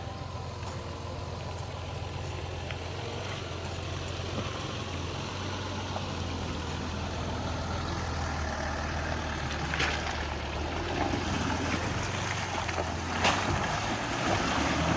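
Engine of an off-road 4x4 running steadily at low speed on a trail, growing gradually louder, with two sharp knocks about ten and thirteen seconds in.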